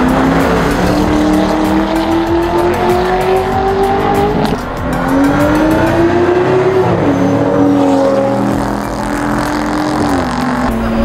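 A car's engine accelerating hard down a drag strip, its pitch climbing steadily and dropping at gear changes about four and a half and seven seconds in, then falling lower again near the end.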